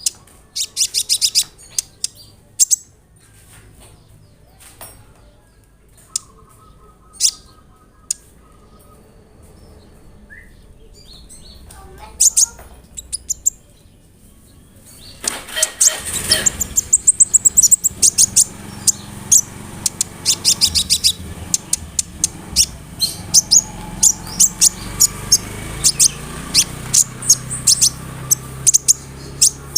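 Kolibri ninja (a sunbird) singing: scattered sharp, high chirps and short trills, then from about halfway a dense, fast run of high chirping song.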